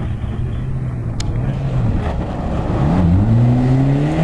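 Ford Escort rally car's engine holding a steady note as it comes through the corner. About three seconds in, the note dips, then climbs steadily as the car accelerates hard away on loose gravel.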